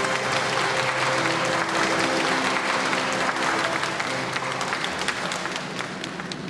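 Crowd applauding over background music with held notes, the clapping thinning toward the end.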